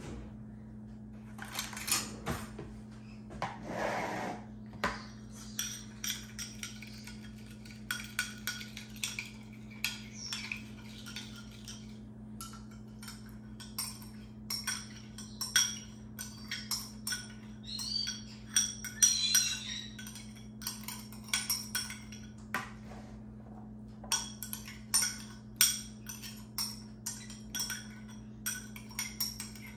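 Spoon and utensils clinking and tapping against glass and ceramic bowls again and again, with a few short scrapes, as salad ingredients and dressing are handled. A steady low hum runs underneath.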